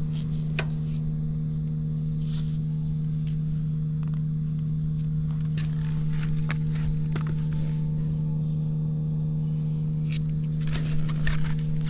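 Suzuki Volty 250's air-cooled single-cylinder engine idling steadily and very quietly, with no abnormal noises. A few light clicks and scrapes are heard, more of them near the end.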